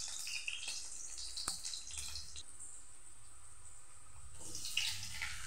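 Garlic cloves frying in a little hot oil in a kadai: a steady sizzle with scattered small crackles and one sharp click about a second and a half in.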